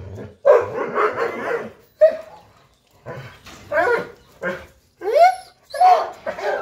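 Young Doberman dogs barking in short bursts, mixed with high yelps and whines that rise and fall in pitch.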